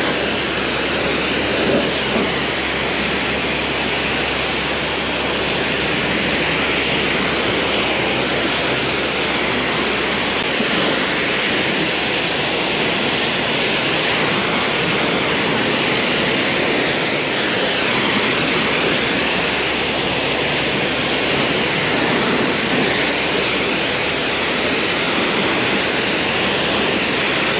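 Pressure washer lance spraying a high-pressure jet of water onto a tractor's bodywork and wheels: a steady, loud hiss.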